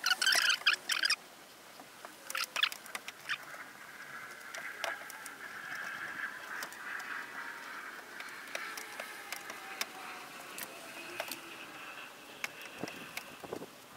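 Plastic tyre levers working a lubricated rubber windscreen seal into a car's rear window aperture: scattered clicks, scrapes and faint rubbery squeaks, with a brief loud burst of rasping noise in the first second.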